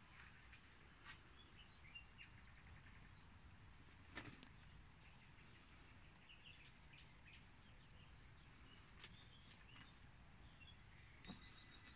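Near silence: faint outdoor ambience with scattered small bird chirps, and a few soft clicks, the clearest about four seconds in.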